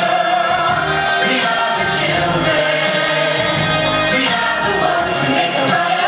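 A large choir singing a stage number with music.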